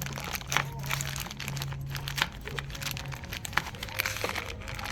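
Crinkling and rustling handling noise with scattered small clicks, over a steady low hum that stops about three seconds in.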